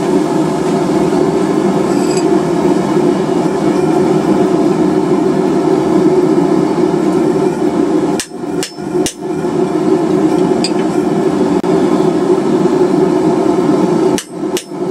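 Hammering on a hand-held cutting chisel to cut scale marks into a steel bar, going on steadily and breaking off briefly about eight seconds in and again near the end.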